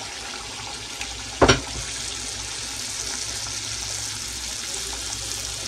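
Teler pitha batter deep-frying in hot oil in a wok: a steady sizzling hiss of bubbling oil around freshly ladled batter. One short knock about a second and a half in.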